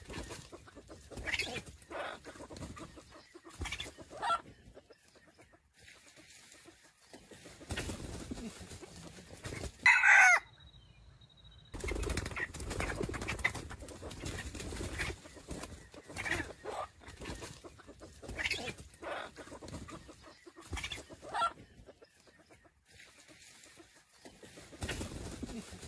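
Red junglefowl rooster clucking in short calls every second or two, with one loud, brief call falling in pitch about ten seconds in.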